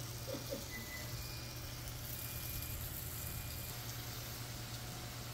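Steady low mechanical hum under a faint even hiss.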